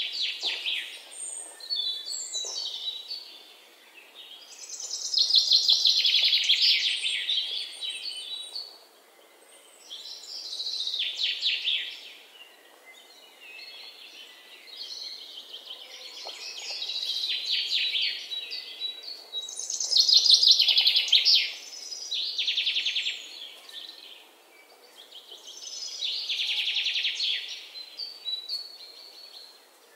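Aluminium foil crinkling and crackling as hands unfold a foil packet, in about seven bursts of one to three seconds each with quieter pauses between.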